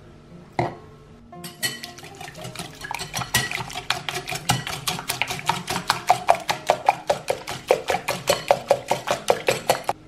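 Wire balloon whisk beating eggs and sugar in a glass bowl, its wires clinking against the glass in quick regular strokes, about four a second, starting about a second and a half in and getting louder toward the end. A single knock comes just before, about half a second in.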